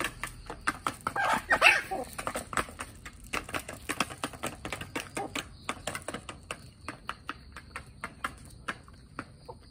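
Chickens pecking grain from a pan feeder and the dirt: rapid, irregular beak taps. Between one and two seconds in, one of the birds gives a short loud call.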